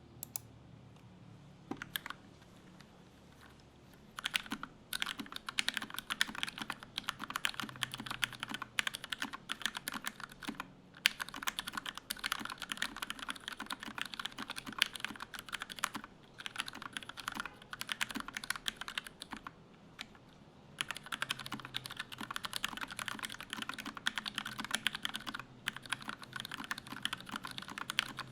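Typing on a 60% mechanical keyboard with lubed Gateron Yellow linear switches and PBT cherry-profile keycaps. A few scattered keystrokes come first, then fast continuous typing starts about four seconds in, broken by a few short pauses.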